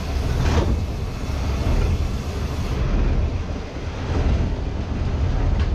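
Fishing trawler's engine running steadily with a deep, even rumble, driving the deck capstan drum at the bow.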